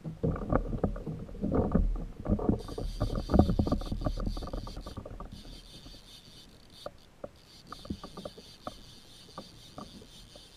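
Knocks and rattles of a fishing rod being handled against a plastic kayak hull, followed by a fishing reel being wound in with a steady high whir that pauses briefly twice. Scattered light clicks follow.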